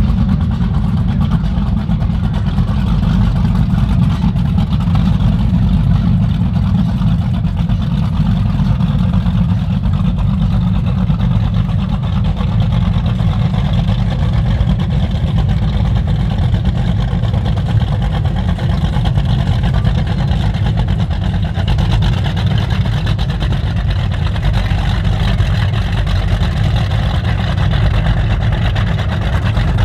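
Boat engines running steadily, a heavy continuous low rumble with no sudden changes.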